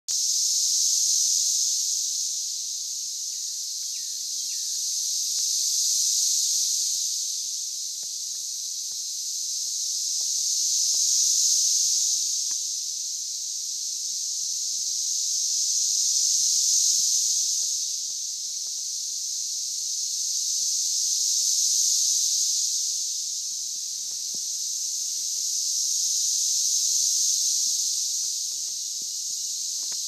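Massed chorus of periodical cicadas: a loud, dense hiss like TV static that swells and fades in slow waves about every five seconds.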